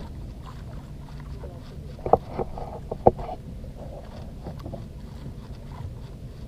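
Steady low rumble of a fishing boat at sea, with two sharp knocks about a second apart near the middle.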